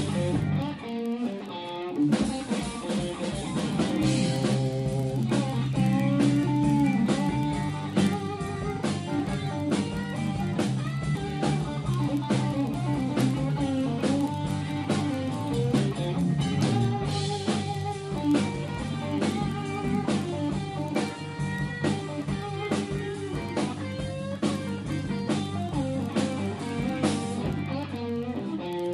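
Live band music: guitar over drums, with a steady beat and no singing.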